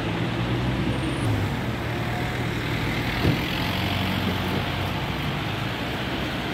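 City street traffic: vehicles running by on the road with a steady low engine hum, and a short knock about three seconds in.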